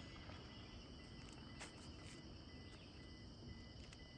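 Faint forest ambience: a steady chorus of insects, with a faint high note repeating at an even pace and a few light clicks.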